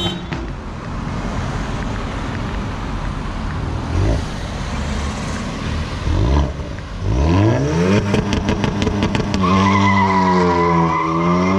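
Hyundai i20 N's turbocharged four-cylinder engine through a Milltek Sport downpipe and cat-back exhaust, accelerating hard in repeated rising surges. There is a quick string of sharp pops in the second half.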